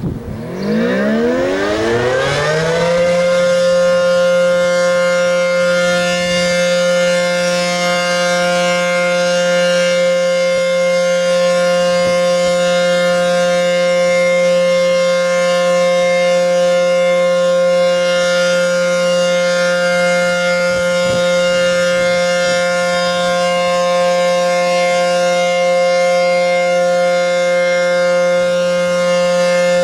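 ACA P-15 outdoor warning siren winding up over about three seconds, then holding a steady tone: the alert signal. Its rotator is broken, so the sound stays level without the sweep of a turning siren.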